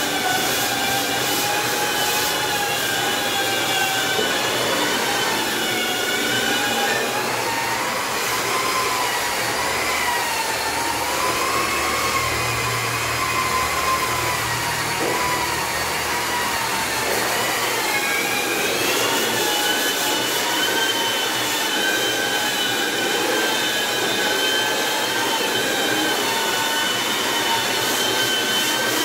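Long-reach electric wall sanders with dust-extraction hoses running on a putty-coated ceiling: a continuous motor-and-vacuum whine of several tones that drift in pitch, one of them rising about 18 seconds in.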